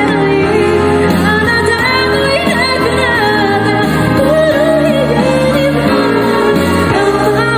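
A woman singing a pop ballad into a handheld microphone, her voice amplified over an instrumental accompaniment with sustained bass notes and chords.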